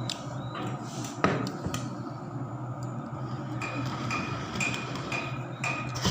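Dishes and cutlery clinking and knocking as a meal is served and eaten, with one sharper knock about a second in. In the second half a short high chirp repeats about five times over a steady low hum.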